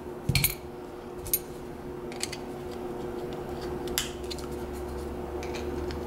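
Scattered light metallic clicks and scrapes as a screwdriver tip works against the core inside a machined-open Hurd 40 mm padlock body, over a steady low hum. The core stays stuck, which is put down to metal burrs holding it.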